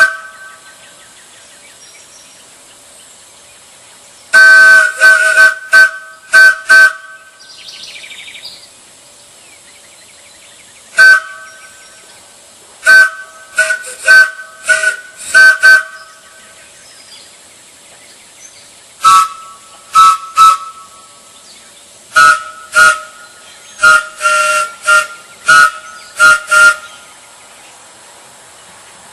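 Large wooden Ford-chime train whistle blown in a series of short toots and a few slightly longer blasts. Each sounds a chord of several notes. The toots come in clusters separated by pauses of a few seconds.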